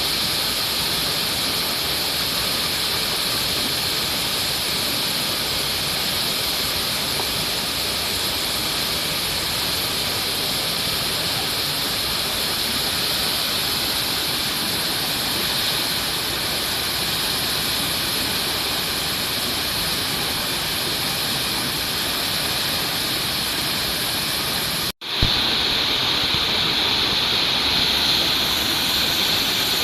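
A steady, even hiss of outdoor noise with a brighter high band. It drops out for a split second near the end, then resumes with the high band stronger.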